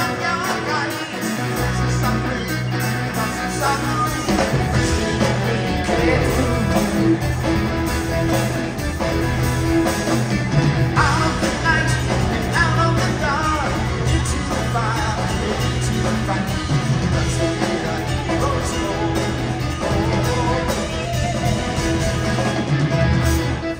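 Live progressive rock band playing: electric guitars, bass, drums and keyboards with a pulsing bass line and a lead vocal over it.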